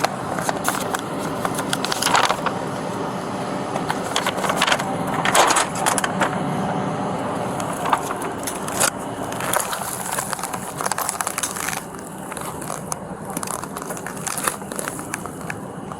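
Scratchy rustling and clicking with a few louder knocks over a steady noise bed, typical of a body-worn camera's microphone rubbing against clothing as the wearer moves.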